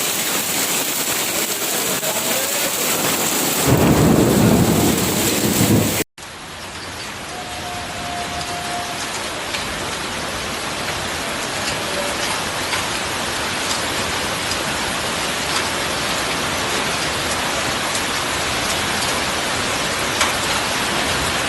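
Heavy rain mixed with hail pelting down in a steady downpour, with faint fine ticks of hailstones striking. A loud low rumble swells about four seconds in, then the sound cuts out briefly and the downpour carries on.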